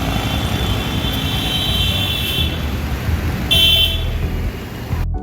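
Road traffic rumble with a vehicle horn: a high horn tone in the first half, then a short, loud horn toot about three and a half seconds in. The sound cuts off abruptly just before the end.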